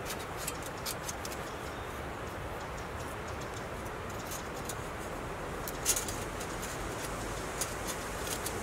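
Thin titanium plates of a folding wood-burning stove clicking and scraping as they are slotted together, with a few sharp clicks and the loudest about six seconds in, over a steady background hiss.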